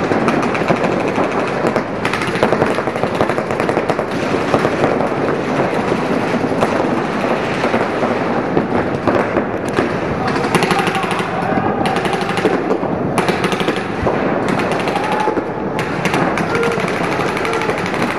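Several paintball markers firing in rapid strings of pops, many shots a second, overlapping with no let-up.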